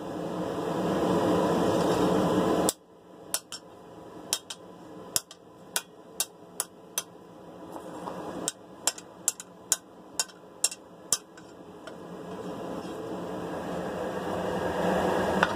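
Hand hammer striking the steel of a sword blade being forged: about fifteen sharp, ringing blows, uneven at first, then quickening to two or three a second. Under them is a steady rushing noise that cuts off suddenly early on and swells back up afterwards.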